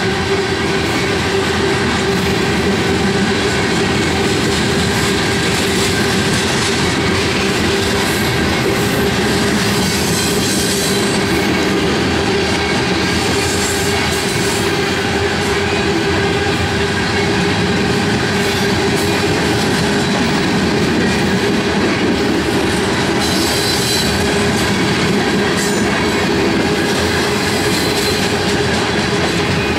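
BNSF freight train's loaded open-top hopper cars rolling past close by: a continuous rumble of steel wheels on rail with a steady ringing tone running through it.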